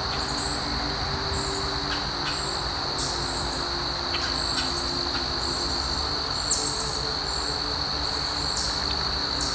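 Steady high-pitched insect chorus, with a few brief bird chirps.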